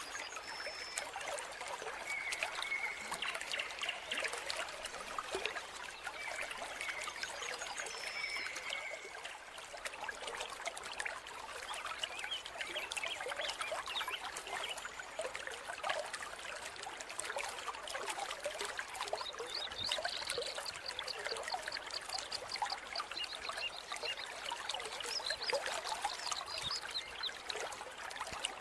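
Small mountain stream trickling and splashing steadily over rocks. A few faint high chirps come and go over the water.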